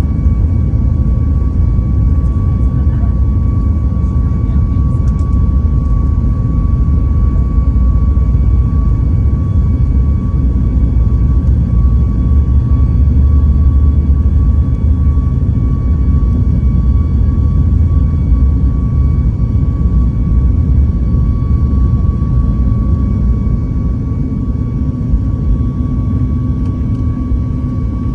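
Airliner cabin noise on the takeoff roll: engines at takeoff power with a deep, steady rumble from the runway and a thin steady high engine tone. The rumble eases a little near the end as the plane lifts off.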